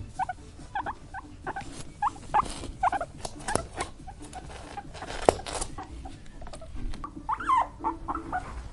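Angry guinea pig squeaking: many short squeaks and chirps, about two or three a second, mixed with sharp clicks, one loud click about five seconds in.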